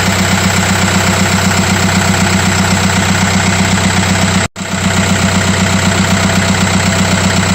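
Volkswagen 2.0 TDI BHW Pumpe-Düse four-cylinder diesel idling just after starting, with a steady, even diesel clatter. The sound cuts out for an instant about four and a half seconds in, then carries on unchanged.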